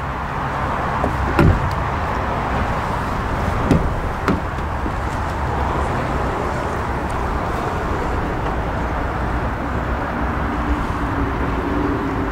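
Car doors being handled: a thump about a second and a half in, then two more close together around four seconds in, over a steady low background hum.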